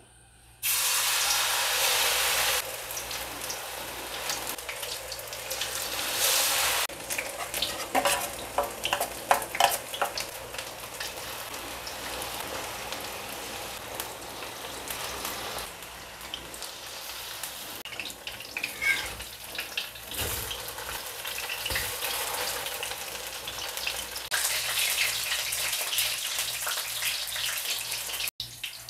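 Fritters of chopped green chilli and shallot frying in hot oil in a stainless-steel wok: a steady sizzle that starts suddenly about a second in and is loudest for the first couple of seconds. Scattered pops and clicks sound through it.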